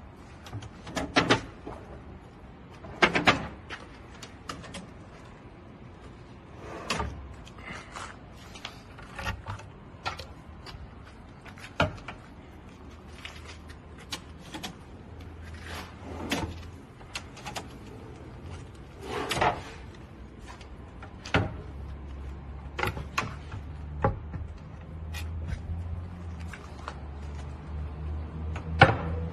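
Wooden drawers, panels and cabinet doors being opened and closed: a string of irregular wooden clicks, knocks and thuds. A low hum comes in during the second half.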